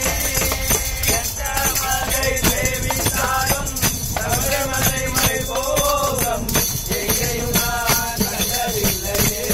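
Group singing of an Ayyappa devotional bhajan, a voice line wavering up and down, accompanied by tambourine jingles and the fast rhythmic clicking of wooden hand clappers.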